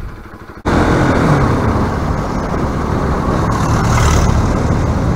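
Bajaj Pulsar RS200 motorcycle riding on a town road: engine running under steady wind and road rush, starting suddenly less than a second in after a short, quieter stretch.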